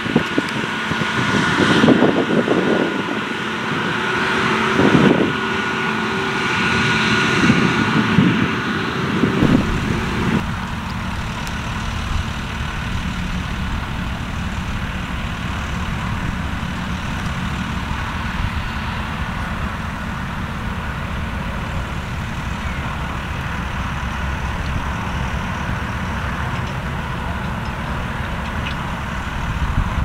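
Farm machinery running with gusts of wind buffeting the microphone. After an abrupt change about ten seconds in, the close, steady engine of a JCB Fastrac 3220 tractor pulling a grain trailer.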